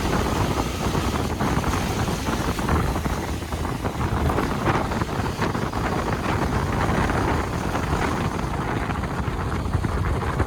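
Wind buffeting the microphone on a moving motorcycle, over a steady rumble of engine and road noise.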